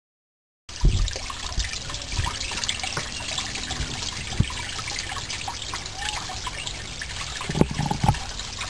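Water trickling in a garden pond, a steady splashy patter that begins suddenly under a second in, with a few low thumps near the start and again about a second before the end.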